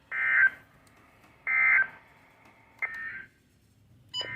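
NOAA Weather Radio end-of-message data bursts: three short bursts of two-tone SAME digital signal, about a second and a half apart, the third fainter. This closes the broadcast marine warning. A brief click comes just before the end.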